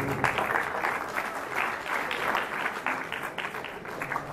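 Audience applauding, a dense patter of many hands clapping that runs steadily.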